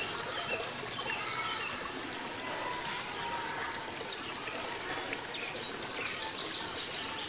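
Steady background hiss, with short, high chirps scattered through it.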